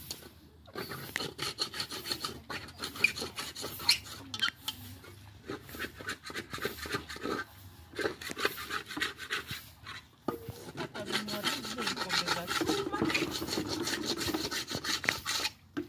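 Pots and dishes being scrubbed by hand, a rapid rasping rub stroke after stroke, which becomes steadier and louder about ten seconds in.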